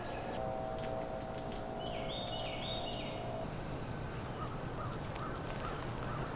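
Birds calling in the woods: a short run of three quick calls a little after two seconds in, and faint chirps later. Under them a steady distant tone holds for about three seconds, then stops.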